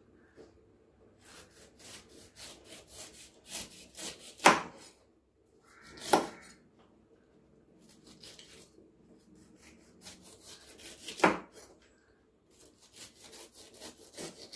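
Large kitchen knife slicing the rind off a whole pineapple on a wooden cutting board: rasping cuts through the rough rind, broken by three sharp knocks about four and a half, six and eleven seconds in.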